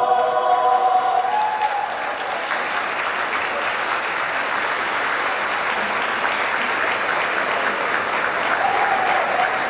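A choir's final held chord dies away about a second and a half in. A large crowd then breaks into steady applause that carries on to the end.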